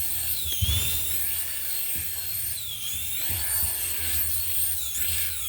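Small electric toy helicopter's motor and rotor whining at a high pitch, the pitch dipping and climbing back every second or two, with a few low thumps.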